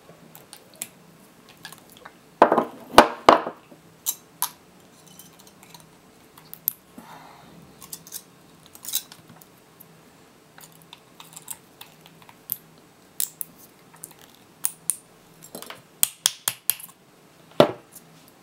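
Pliers cutting and prying spot-welded nickel tabs off cylindrical lithium-ion cells: irregular sharp clicks, snips and metal clinks. The loudest cluster comes a few seconds in, and a quick run of clicks comes near the end.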